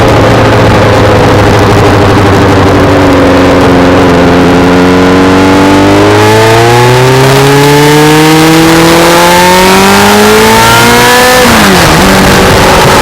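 Sport motorcycle's inline-four engine heard on board while riding, pulling under throttle with its pitch rising steadily for several seconds. Near the end the pitch drops sharply and settles lower, as at a gear change.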